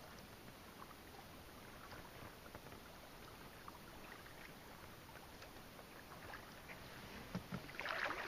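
Kayak paddling: soft splashes and drips of water from the paddle blades, quiet at first, with louder strokes near the end.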